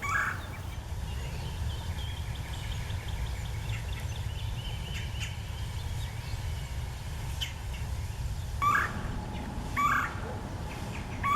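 Red-bellied woodpecker giving short, rising calls: one at the start and three more in the last few seconds, over a steady low rumble.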